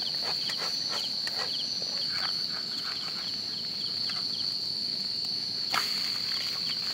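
Insects calling: a steady high-pitched cricket trill, with another insect giving short chirps in little groups a few times a second. A few light clicks in the first couple of seconds and one sharper knock late on.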